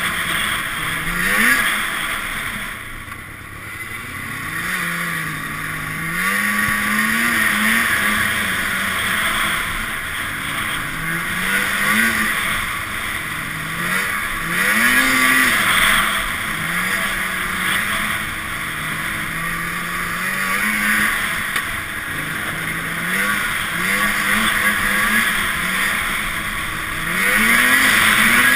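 Arctic Cat Sno Pro snowmobile's two-stroke engine heard on board during a trail ride, revving up and easing off over and over, with a steady rushing hiss underneath.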